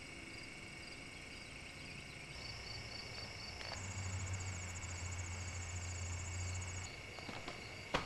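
Crickets or similar insects chirping in steady, fast-pulsed trills. A low hum joins for about three seconds in the middle, and a sharp knock comes near the end.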